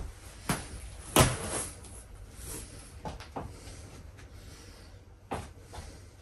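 Plush fabric of a large stuffed horse being pulled apart and handled: a few short, sharp tearing and rustling sounds, the loudest about a second in.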